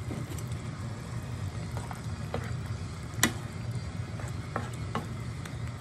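Pork and chicken adobo simmering in a pan while pineapple chunks are stirred in, a utensil knocking against the pan several times. The loudest clack comes about three seconds in, over a steady low hum.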